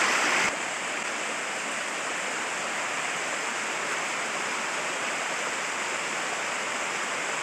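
Rocky mountain creek rushing over stones in a steady roar of water, running high after a month of heavy rain. The rush drops slightly in level about half a second in, then holds steady.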